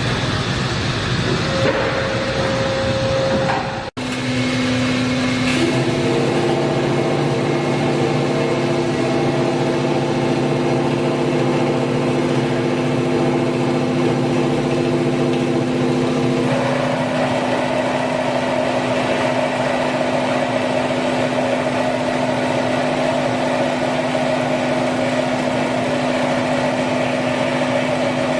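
Kotec Newrun 10DX H-beam drilling line running: a steady machine drone with several held whining tones. The sound drops out abruptly about four seconds in and comes back with different pitches, and the tones shift again a little past halfway.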